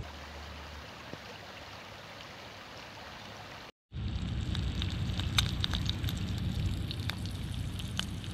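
A woodland creek flowing, a steady even rush of water. After a sudden cut about four seconds in, an egg sizzles in a cast iron skillet over a wood campfire, with the fire crackling in sharp scattered pops.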